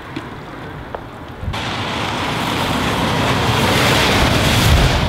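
Articulated lorry passing close at speed on a wet road: a rush of tyre spray and air that starts abruptly about a second and a half in and builds to its loudest near the end. Before it, a quieter wind rumble with a couple of light clicks.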